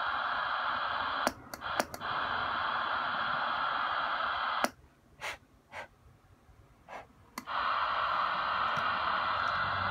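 Cobra 135XLR CB radio hissing with receiver static from its speaker. The static drops out briefly with clicks about a second in, then cuts off with a click near the middle, stays off for about three seconds with a few clicks, and comes back.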